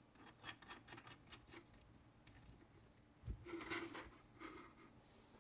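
Faint handling of a phone and a 3D-printed plastic phone tripod clamp: a few light clicks in the first second and a half, then a soft thump a little past three seconds in, followed by brief rubbing.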